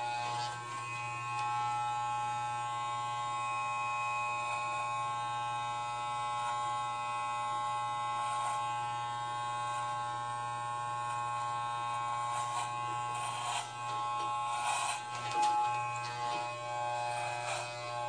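Electric hair clippers running with a steady buzz, shaving short hair close to the scalp. Several brief rasping bursts come in the second half as the blades pass through the hair.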